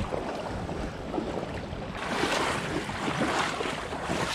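Shallow creek water splashing and sloshing around wading legs, a little louder from about halfway through.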